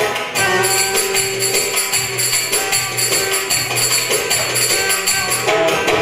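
Instrumental folk dance music with fast, steady jingling percussion over a pitched melody.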